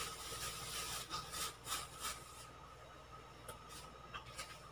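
Faint crackling and rustling as a crispy, breadcrumb-coated fried mango pie is broken apart by hand, a few soft crackles scattered through.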